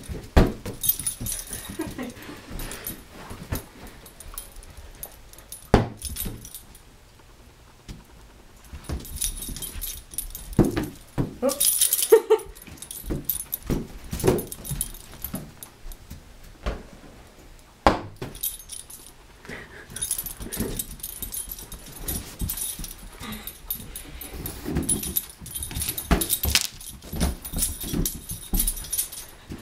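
A small dog playing with inflated party balloons, pawing and bumping them across a carpeted floor: scattered irregular thumps and taps, with the dog's occasional whimpers.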